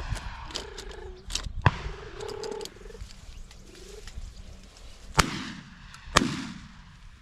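Three shotgun shots: one about one and a half seconds in, then two more a second apart near the end, each ringing out briefly. Bird calls with a wavering pitch are heard in the first few seconds.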